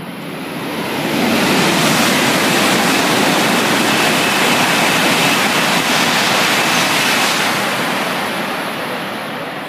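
Coupled E5 and E6 series Shinkansen passing through the station at speed without stopping: a loud rush of air and rolling noise that builds over the first second and a half, holds for about six seconds, then fades as the train goes away.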